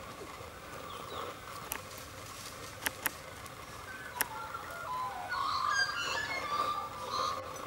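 Birds calling and warbling, a busy run of short chirps that grows loudest in the second half, with a few sharp clicks in the first half.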